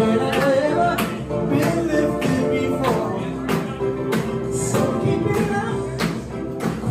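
Male vocal group singing live into microphones through a PA, the lead voice carried over backing music with a steady percussive beat.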